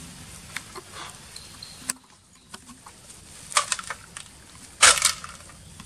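Macaques moving about in grass and leaf litter around a metal feeding tray: scattered rustles and clicks, with a louder short scrape about five seconds in.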